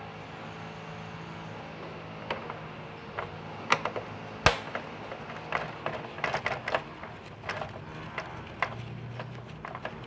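Irregular plastic clicks and knocks from hands working the wire connectors and plastic housing of an air-conditioner indoor unit's control board, with one sharp click about four and a half seconds in and a quick run of clicks soon after.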